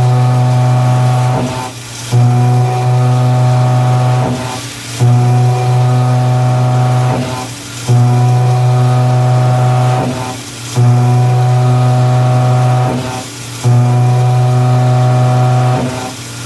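2-inch Ingersoll plunge mill on a Mazak CNC plunging into hot-rolled steel over and over. Each plunge sets off a loud, steady, humming cutting drone that starts suddenly, holds about two seconds, then fades as the tool retracts and steps over, about every three seconds.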